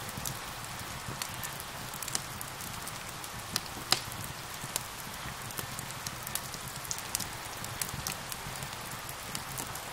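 Fireplace fire crackling with scattered sharp pops, the loudest about four seconds in, over the steady hiss of falling rain.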